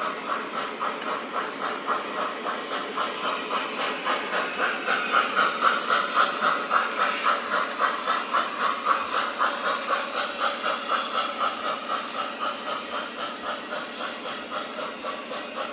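Steam chuffing with hiss from the onboard sound system of an MTH RailKing O-gauge Pennsylvania Railroad steam locomotive model, a steady rhythm of about three chuffs a second with no deep bass. It grows louder around the middle as the engine comes nearer, then eases off.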